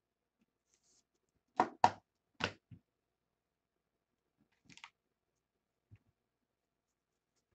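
Trading cards and packs being handled on a tabletop: four sharp taps and knocks in quick succession about a second and a half in, then a few fainter clicks and one small tap later on.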